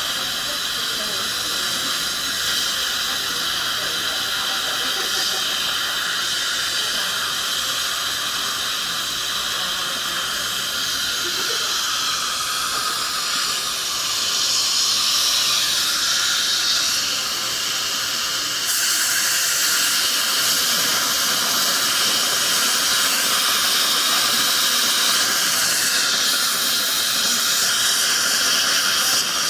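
Dental operatory equipment hissing steadily: the suction and air-driven handpiece at work on a tooth. It gets louder about halfway through and again a few seconds later.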